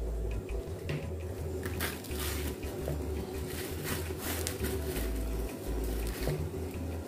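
Bananas being peeled by hand: soft tearing of the peel, with a few brief crackles from handling it over a plastic bag, over a steady low hum.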